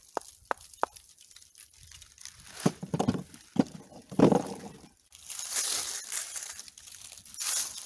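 Old bricks being gathered from dry leaves: sharp knocks, about three a second, as a brick is tapped in the hand, ending about a second in; then crunching and heavier knocks of brick on brick around four seconds in as one is set into a plastic tub of bricks; then dry oak leaves rustling and crackling as a hand pulls a half-buried brick out of the leaf litter.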